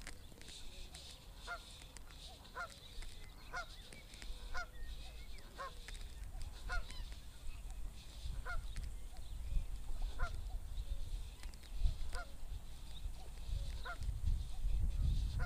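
Geese honking repeatedly across the water, short calls about once a second. Wind rumbles on the microphone, stronger in the second half.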